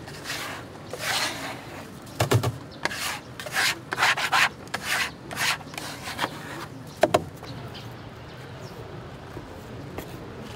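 Plastic scraper scraping crumbs off a wooden cutting board in a run of about ten short strokes, with a sharp knock about two seconds in and another about seven seconds in. It then falls to a quieter steady background.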